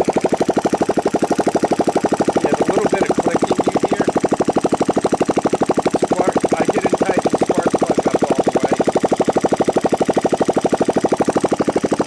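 Kawasaki Lakota KLF300's air-cooled single-cylinder four-stroke engine idling steadily on a test bench, an even, rapid putter of firing pulses. It runs smoothly with no bad noises.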